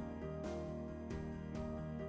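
Background music with held notes and a steady beat.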